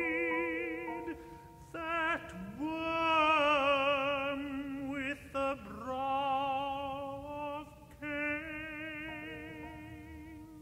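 A tenor voice sings slow recitative phrases with wide vibrato, in four or five phrases with short breaks between them, over sustained piano chords.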